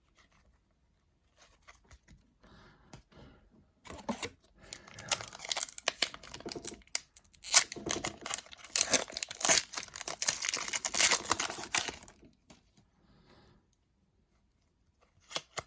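Wrapper of a hockey card pack being torn open and crinkled, a crackling stretch of about eight seconds starting about four seconds in, with faint rustling of cards before and after.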